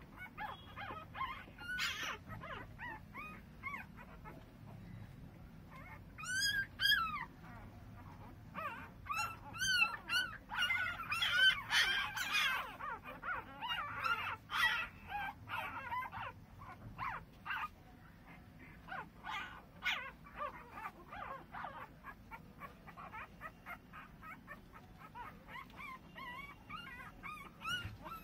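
Newborn mastador puppies whimpering and squealing in many short, high-pitched cries. A louder, denser run of squeals comes about midway through.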